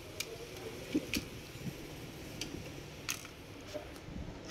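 Scattered light clicks and taps of laptop chassis parts, cables and a screwdriver being handled during disassembly, about six of them spread irregularly over a faint steady background.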